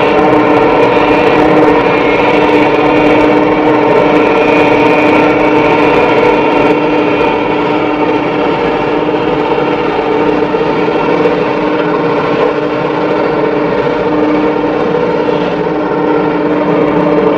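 Heavy machinery's diesel engines running hard at steady high revs, with an even whine over the engine note, as a tracked excavator works its way through deep mud.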